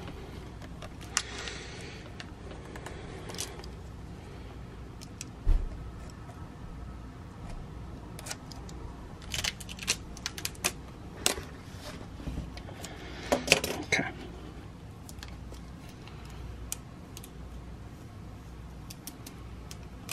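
Scattered handling noises of vinyl-wrapping work: crinkling and peeling of clear plastic film, light clicks and taps of tools set down, and one dull thump about five seconds in. The rustling comes in louder bursts in the middle and near the end.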